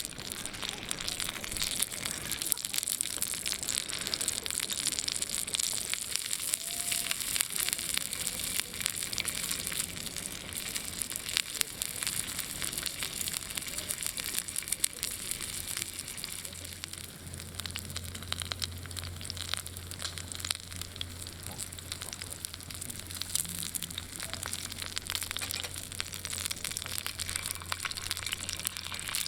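Dense crackling and sizzling of spare ribs cooking over a wood campfire, with many sharp pops over a steady hiss.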